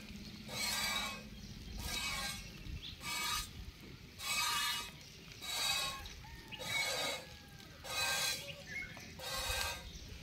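Goat's milk squirting from a hand-milked teat into a steel pot: a hissing spray with each pull, about eight squirts, a little over one a second.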